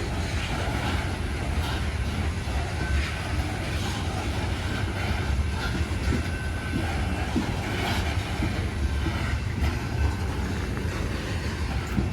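Loaded coal hopper cars of a long freight train rolling past, a steady heavy rumble with recurring clicks of the wheels over rail joints and brief faint squeals.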